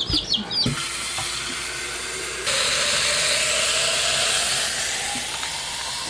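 Kitchen faucet running water into a glass chick-waterer jar. The stream gets louder about two and a half seconds in, with a rising note as the jar fills. Chicks peep briefly at the very start.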